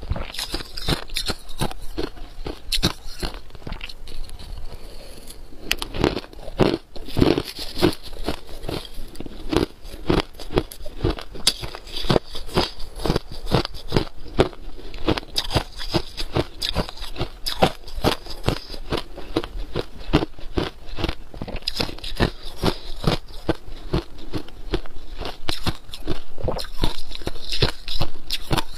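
Crushed ice being bitten and chewed: a dense, rapid run of sharp crunches.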